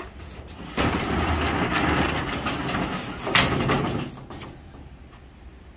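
Corrugated steel roll-up storage unit door being pushed open, rumbling and rattling for about three seconds from about a second in, with a louder clank near the end.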